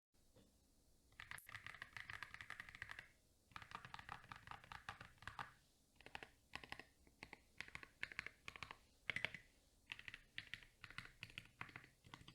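Typing on a Tofu60 mechanical keyboard fitted with Akko CS Jelly Black linear switches, a PC plate, foam dampening and SA-profile keycaps. Fast, continuous runs of keystrokes start about a second in, then give way to shorter bursts of clicks with brief pauses between them.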